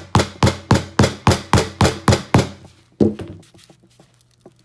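A claw hammer strikes the edge of an iPad mini's aluminium case in a quick run of even blows, about four a second, for some two and a half seconds. One last blow lands about half a second later. The blows are meant to crack the tablet's glass so the dead device can be broken open.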